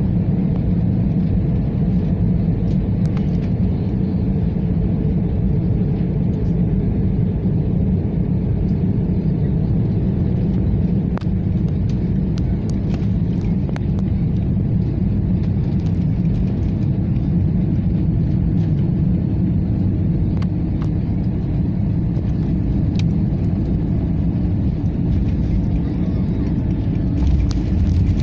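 Steady low rumble of an Airbus A320-family airliner's jet engines and rushing air, heard from inside the cabin on final approach. Near the end the noise changes and grows a little as the plane touches down on the runway.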